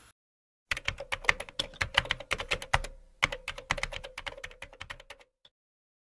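A quick, irregular run of sharp clicks or taps, several a second, with a short break about halfway. A faint steady hum lies beneath them.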